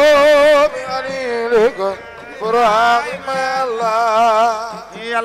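A man's solo voice singing an Islamic devotional chant, amplified through a microphone. He swoops up into a long note with a heavy vibrato, breaks off about two seconds in, then sings a second long, wavering phrase.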